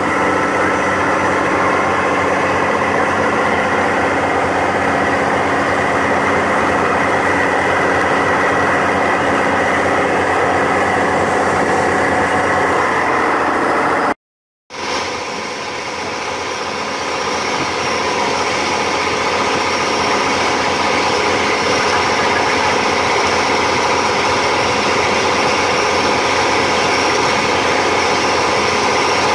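Motorboat engine running steadily at speed, with the rush of the wake churning alongside the hull. About halfway through the sound cuts out completely for half a second, then returns slightly quieter and builds back up.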